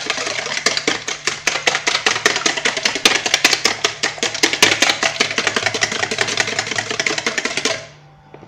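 Wire balloon whisk beating thin egg-and-milk batter in a plastic bowl: fast, rhythmic clicking of the wires against the bowl, many strokes a second, stopping abruptly about a second before the end.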